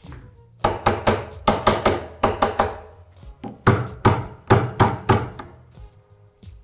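Hammer tapping repeatedly on a seized part of an old Bendix bicycle hub to knock it loose: sharp metallic strikes, about four a second, in two runs with a short pause in the middle.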